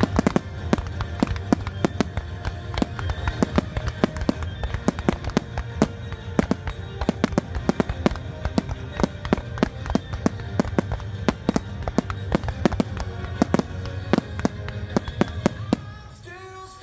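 Aerial fireworks shells bursting in a rapid barrage of bangs, several a second, over the show's music soundtrack; the bursts stop about a second before the end.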